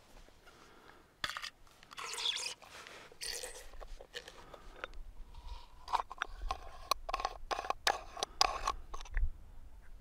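Metal flashlight head being unscrewed by hand: gritty scraping and clicking of the threads and of the parts in the hands, turning into a quick run of short scrapes in the second half as the lens and reflector come free.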